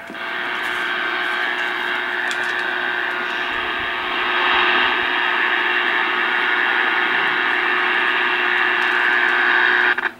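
Dwight D. Eisenhower CB base radio's speaker hissing with receiver static. The static gets louder about four seconds in and cuts off suddenly near the end.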